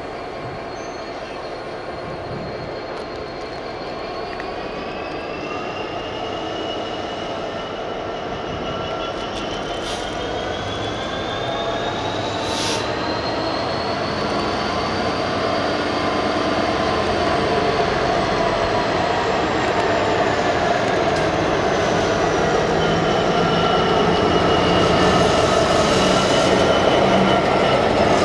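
Class 66 diesel-electric locomotive running as it approaches slowly, growing steadily louder until it draws alongside near the end. High whining tones slowly rise and fall above the engine.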